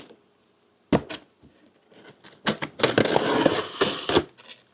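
A cardboard shipping box being opened by hand: a knock about a second in, then a stretch of loud rustling and scraping of cardboard and packing.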